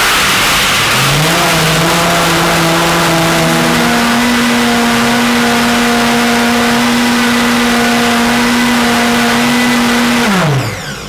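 Optimum 9200 high-speed blender blending almonds with water. The motor starts abruptly and its pitch climbs in steps over the first four seconds as it speeds up, runs steadily, then winds down with a falling whine about ten seconds in.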